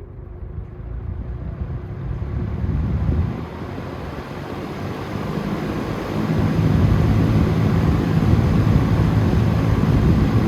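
Vintage Dominion box fan starting up from off on high speed: the motor and blades spin up and the rush of air grows louder and higher over several seconds, settling into a steady low hum about six seconds in.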